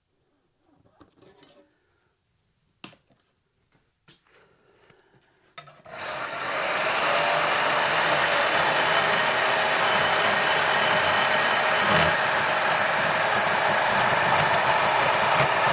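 A power saw cutting through a bar of 80CRV2 steel, starting about six seconds in and then running steadily. Before it starts there are only a few light knocks. The maker thinks this cut probably destroyed the saw blade.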